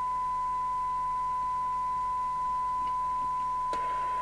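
Steady, even test tone from a Thunderpole T2000 CB radio receiving a modulated signal from a signal generator with its squelch open, the usual tone for a SINAD sensitivity check. A single short click comes near the end.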